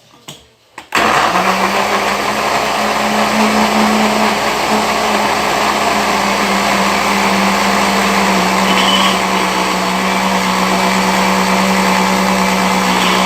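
Electric kitchen blender switched on about a second in after a couple of small clicks, then running steadily at one speed while blending milk, banana and sugar into a smoothie.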